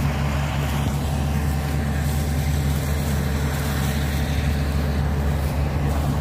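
Kubota combine harvester's diesel engine running steadily with a low drone as the tracked machine drives across the field, hauling a utility pole.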